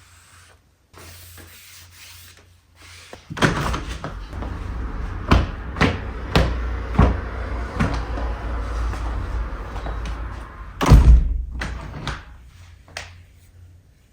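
A run of sharp knocks over a low rumble, then one heavy thud about eleven seconds in.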